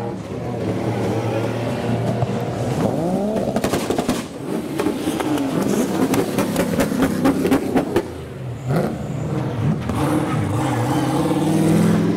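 Modified drift cars rolling past one after another at low speed, their engines revving up and down, with a quick string of sharp cracks in the middle.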